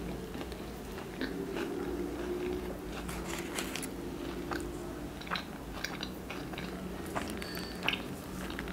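A person chewing a mouthful of sandwich close to the microphone, with short wet mouth clicks scattered through, over a steady low hum.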